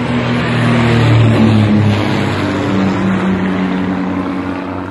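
Cessna L-19 Bird Dog propeller plane passing low overhead. Its piston engine is loudest about a second in, then drops in pitch and fades as the plane flies away.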